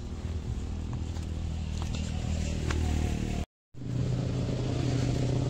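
Steady low drone of an engine running nearby, with a few light clicks. It drops out for a moment about three and a half seconds in and comes back as a steady hum at a slightly higher pitch.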